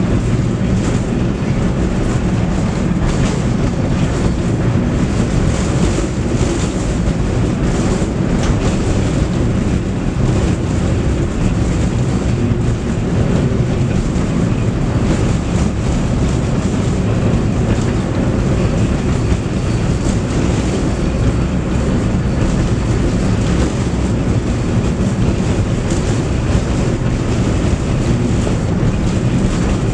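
Tram running along its track, heard from on board: a steady, loud rumble of wheels on rails.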